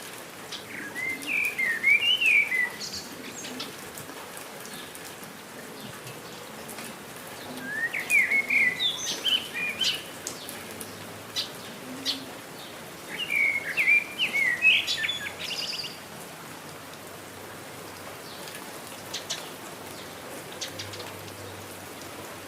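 A songbird singing three short, quick phrases of rising and falling chirps, about six seconds apart, over the steady hiss of falling rain with scattered drip clicks.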